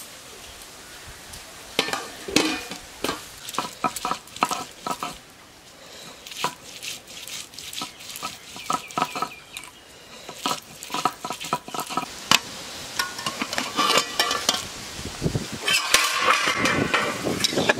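Peeled garlic being ground on a stone sil-nora: the cylindrical grinding stone is rocked and scraped across the stone slab in repeated strokes, with many sharp clacks of stone on stone. Near the end comes a louder, denser stretch, which fits a wok of pointed gourds boiling hard over a wood fire.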